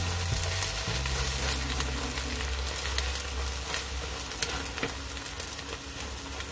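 Thai omelette (khai jiao) frying in oil in a nonstick pan: steady sizzling and crackling, with a slotted spatula pushing and turning the egg. A steady low hum runs underneath.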